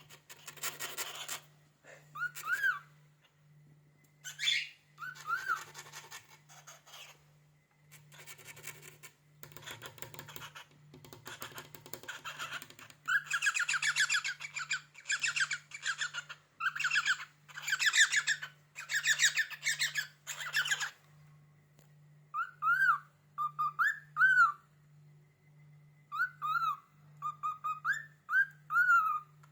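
A cockatiel making raspy, creaky chattering sounds in bursts, then switching about two-thirds of the way through to a string of short whistled notes that rise and fall.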